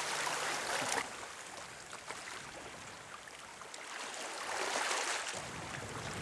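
A steady rush of moving water and wind with no clear tone. It drops suddenly about a second in and swells again a little past the middle.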